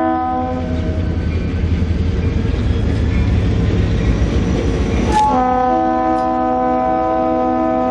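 Diesel locomotive's multi-note air horn sounding a held chord, breaking off about half a second in. The rumble of the engine and the hopper cars on the rails grows as the train passes close. A sharp click comes just after five seconds, and the horn sounds again to the end.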